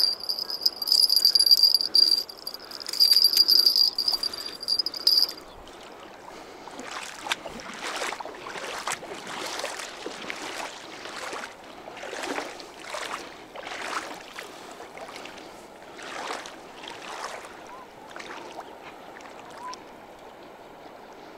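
A small bite-alarm bell on the tip of a bottom-fishing rod jingles steadily and shrilly for about five seconds while a fish is on the line, then stops suddenly. After that come splashing steps, about one a second, of someone wading through shallow water.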